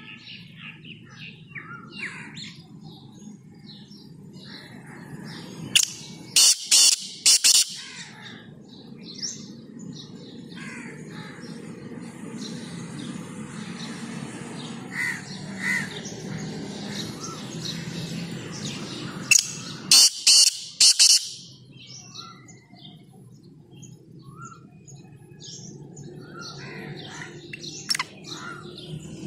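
Male black francolin calling twice, about fourteen seconds apart, each call a quick run of about four loud, sharp notes. Smaller birds chirp faintly in the background.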